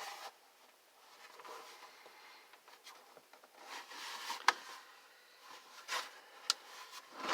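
Space heater parts being handled and pushed together: soft scraping and rubbing with scattered sharp clicks and knocks, the sharpest about four and a half seconds in.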